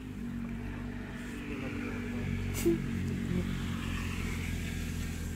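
A small engine running at a steady speed, a low droning hum, with one sharp click a little past halfway.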